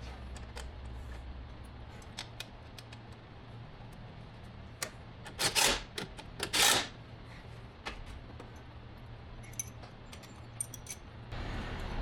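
Light metallic clicks and clinks of tools and parts being handled, with two louder, short rasping rattles a little past the middle, over a faint low hum.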